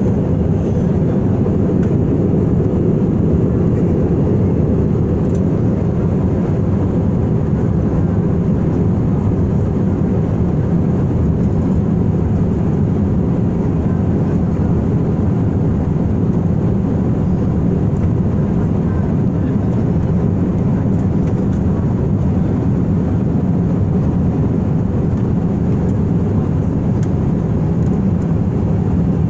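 Steady cabin noise of a jet airliner in flight, heard from a window seat: a constant low rumble from the engines and the air rushing past the fuselage, with no change in pitch or level.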